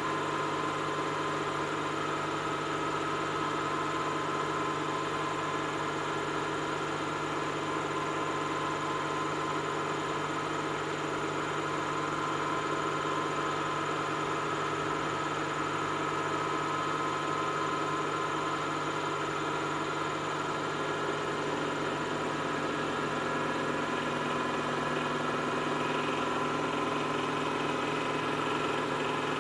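Samsung washing machine running through its wash cycle: a steady motor hum with a high, even whine.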